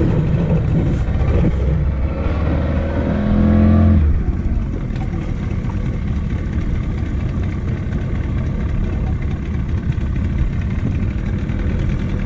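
Small boat's outboard motor running, revving up to a peak about two to four seconds in, then dropping back to a steady run.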